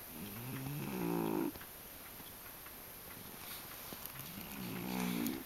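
A sleeping pet snoring: two long snores about four seconds apart, each rising in pitch and growing louder before it cuts off.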